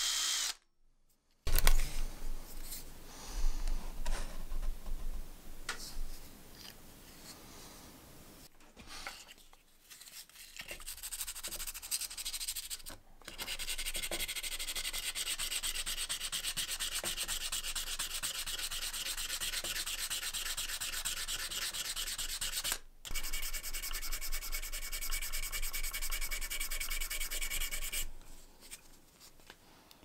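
Brass lighter shell being sanded by hand with sandpaper: fast back-and-forth rubbing strokes, irregular at first and then steady, with a short pause near the end. In the first second a drill-driven brass wire brush whirs and stops.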